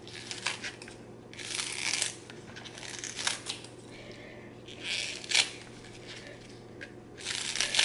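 Scissors snipping through a bunch of green onions: about four crisp cuts a second or two apart, with small clicks between them.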